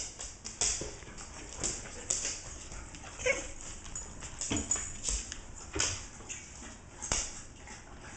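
A dog moving about close by on a wood floor, its body brushing the camera and chairs: a string of sharp knocks and scuffles, with a short pitched animal noise about three seconds in.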